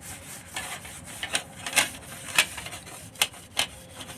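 A tissue rubbed around the inside of a fluted metal tart tin to spread a few drops of oil over it: irregular scratchy rubbing strokes, with several sharper scrapes in the middle.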